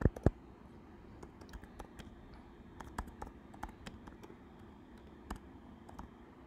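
Typing on a computer keyboard: irregular single keystrokes, with two louder clacks right at the start.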